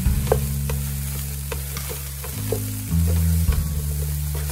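Sticky rice sizzling in a pot as a spatula stirs and turns it, with repeated light scrapes and taps of the spatula against the pot. Low background music plays underneath.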